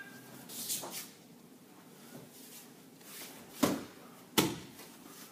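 A body landing on a padded martial-arts mat in a backward breakfall as the thrown partner goes down: two thuds about three-quarters of a second apart, near the end. Before it, about a second in, there is a brief rustle.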